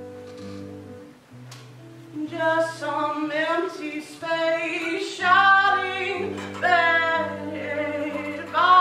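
A woman singing a song over held accompaniment chords. The instruments play alone at first, and her voice comes in about two seconds in with vibrato on the long notes.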